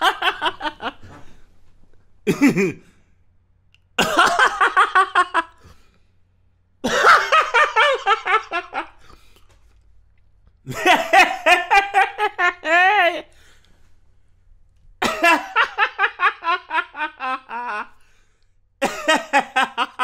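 A Jamaican man laughing heartily in a string of separate takes, each a quick run of 'ha-ha' pulses lasting one to a few seconds, with short pauses between them.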